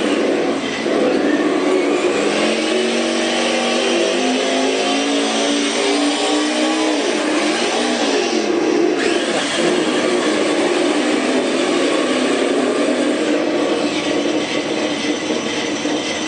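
Simulated Cobra Mustang V8 engine sound played by an ESS-One electronic sound module. The engine revs with a rising pitch over the first several seconds, drops back about seven seconds in, then runs steadily.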